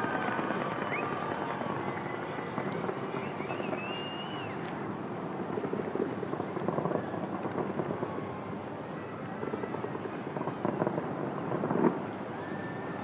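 Fireworks going off in a continuous dense crackle, swelling twice, with a sharper bang a little before the end.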